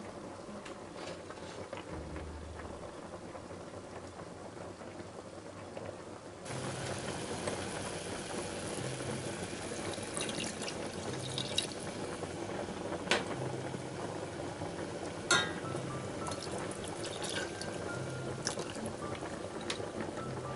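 Quiet background music. About a third of the way in, a steady hiss of liquid being poured into a stainless steel saucepan of simmering gravy (red wine, then beef broth) begins and runs on, with a couple of sharp knocks against the pot.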